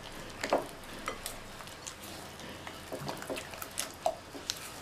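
Silicone spatula stirring a thick yogurt-and-gram-flour marinade in a glass bowl: faint wet stirring with scattered light clicks and scrapes against the glass.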